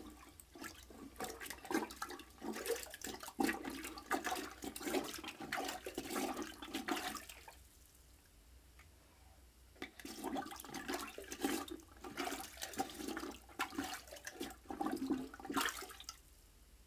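Rubber plunger pumping in a clogged toilet bowl: repeated water sloshing and splashing, in two bouts with a pause of about two seconds in the middle.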